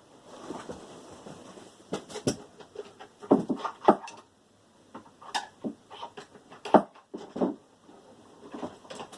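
Irregular sharp knocks and clicks of hand tools working on plastic electrical plugs as they are prised apart, loudest a few times in the middle.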